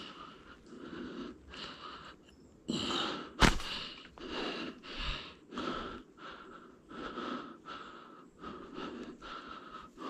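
A person breathing hard and fast close to the microphone, in quick regular puffs about twice a second, with one sharp click or snap about three and a half seconds in.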